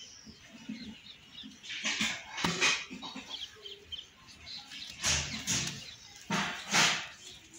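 Hands crushing lumps of dry yellow soil and pouring the powder back into a plastic basin: several bursts of gritty crumbling and trickling, about two seconds in and again from about five seconds in.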